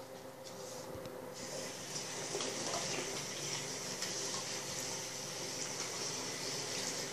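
Bathroom tap running in a steady stream onto hands being washed in the sink, the water getting noticeably louder about a second and a half in.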